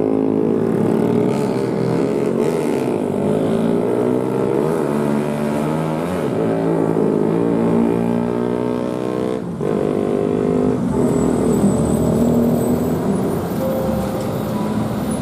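Engines of several cars and a light truck taking a steep hairpin bend one after another, their pitch rising and falling as they change throttle through the curve.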